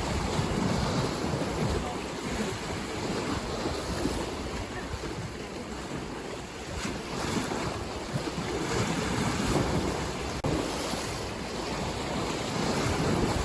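Ocean waves washing onto a shore: a steady rushing surf that swells and eases over several seconds, quieter around the middle and building again toward the end.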